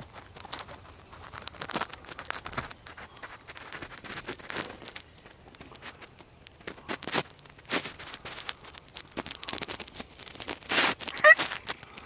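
Irregular rustling and crinkling close to the microphone, with scattered clicks, like clothing or gear being shifted. About eleven seconds in there is a brief wavering higher-pitched sound.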